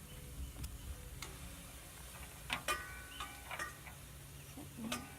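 Scattered clicks and knocks of containers and utensils being handled on a tabletop while searching for something by touch. The loudest come as a pair of clinks about two and a half seconds in that ring briefly, with another near the end.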